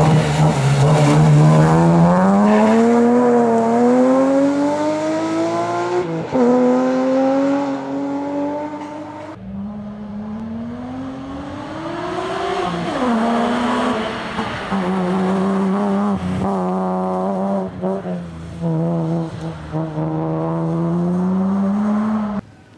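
BMW M3 rally car's engine under hard throttle, revving up with a sharp drop in revs at a gear change about six seconds in. It climbs again, falls back around thirteen seconds in, then holds fairly steady revs before cutting off abruptly near the end.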